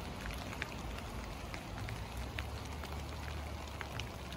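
Small hailstones falling on a wet concrete sidewalk and bare soil: a steady patter with scattered sharper ticks of single stones striking.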